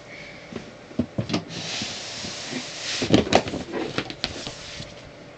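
A box being opened and the fireworks in it handled: a series of knocks and thumps with rustling of packaging in between.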